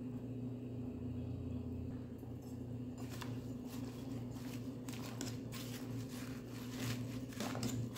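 Metal spoon stirring and turning squash vines in an aluminium pot, with scattered soft clicks and rustles starting about three seconds in, over a steady low hum.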